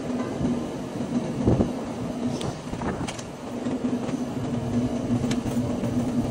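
Trane rooftop unit's condenser fan running on its newly replaced motor: a steady motor hum over the rush of air through the fan, with a few light ticks.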